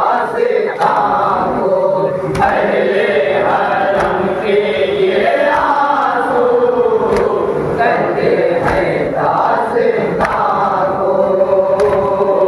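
A male reciter and a crowd of men chanting a noha (mourning lament) over a loudspeaker, with the crowd beating their chests in unison (matam), a thump about every second and a half.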